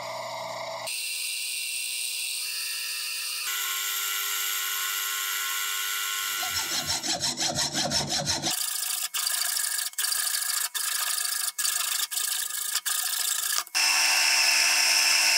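Metal lathe cutting and drilling a metal workpiece in a run of short clips: a steady hissing cut over a steady machine tone, changing abruptly from clip to clip. Around the middle the cut pulses rapidly, then regular sharp ticks come about once a second, and the loudest part, drilling into the spinning part, comes near the end.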